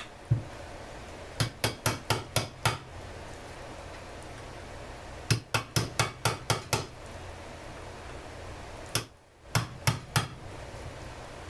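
A hammer striking a steel punch in three quick runs of sharp metal-on-metal taps (about six, then seven, then four blows), driving out a rusted cotter key on a chainsaw part.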